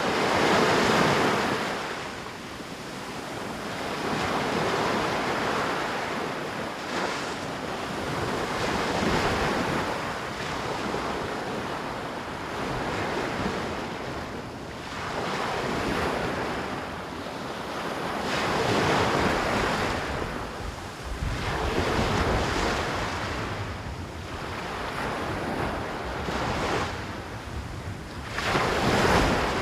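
Ocean surf breaking and washing up on a beach, swelling and fading in waves about every four seconds, with wind on the microphone.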